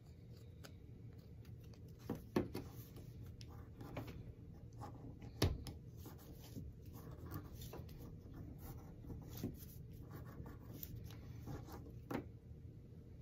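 Copper foil being burnished down around the edge of a glass piece: faint rubbing and scraping, with a few sharp clicks as the glass is handled, about two and five seconds in and near the end.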